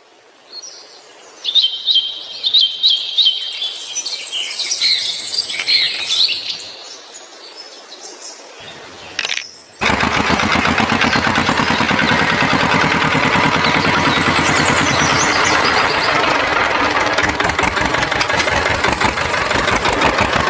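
Birds chirping over a quieter background, then from about ten seconds in a loud, steady machine-like noise with a fine rapid flutter, like a running motor.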